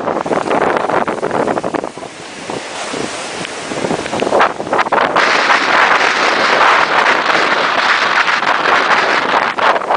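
Hurricane Earl's wind gusting hard and buffeting the microphone. It eases about two seconds in, then rises again and blows strongest from about five seconds in.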